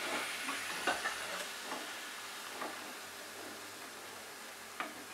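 Deep-frying oil sizzling around bread pakoras as they are lifted out with a slotted spoon, the sizzle slowly fading, with a few light clicks of the spoon against the pan.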